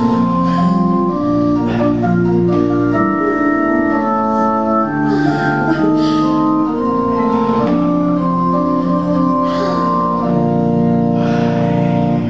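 Electronic stage keyboard playing an instrumental passage of held notes that do not fade, moving chords over a bass line.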